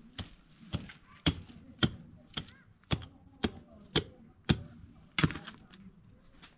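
Repeated hard blows, about two a second, about ten in all, stopping a little over five seconds in.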